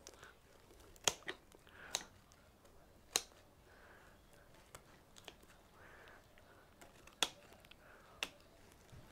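Pruning shears snipping through thick ficus roots: sharp, short snips at irregular intervals, a cluster in the first three seconds and two more near the end, with faint rustling of the root mass between cuts.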